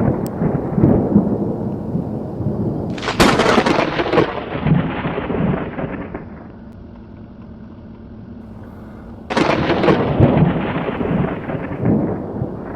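Thunder: two close claps, about three seconds and nine seconds in, each a sudden crack followed by a rumble that dies away over a few seconds, with the tail of an earlier rumble fading at the start.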